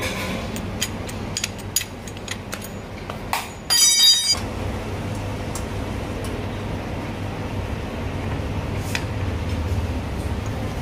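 Spanner and small metal parts clicking and clinking on a Royal Enfield Bullet's cylinder head as the manual decompressor is unscrewed. A brief louder noise comes about four seconds in, followed by a steady low hum.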